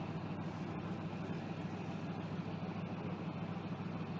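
Leopard 2 tank's V12 diesel engine idling with a steady low hum.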